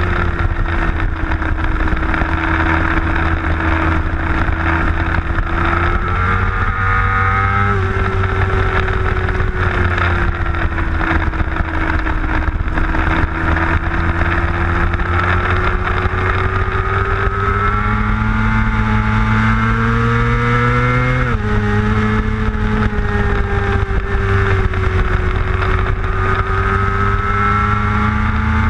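Middleweight superbike engine heard from an onboard camera on the bike, with wind rush. The engine note eases off with the throttle closed, with a brief jump and fall in pitch about seven seconds in. It then climbs steadily under acceleration, drops sharply at an upshift about 21 seconds in, and climbs again near the end.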